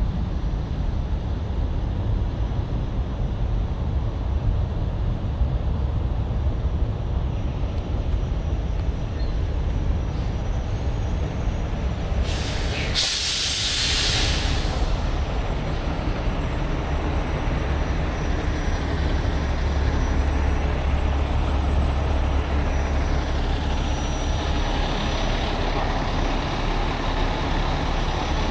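Heavy diesel truck running steadily with a low rumble. About halfway through comes a loud hiss of released air lasting about two seconds, like an air brake.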